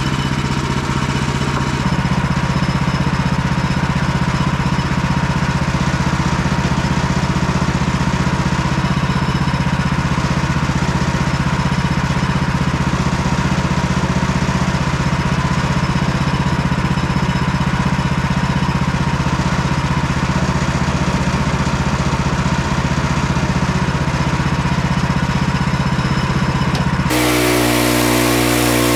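Engine of a portable bandsaw sawmill running steadily. Near the end the engine note changes abruptly as the saw head starts cutting into the log.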